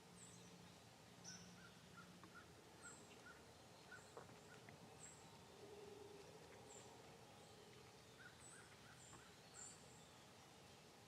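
Near silence with faint small-bird chirps: short, high calls repeating every second or so over a quiet hiss.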